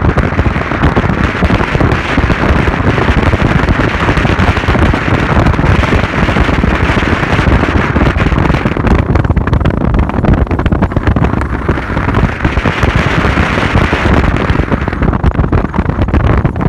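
Loud, steady wind buffeting on the microphone from a moving vehicle, with the vehicle's road noise underneath.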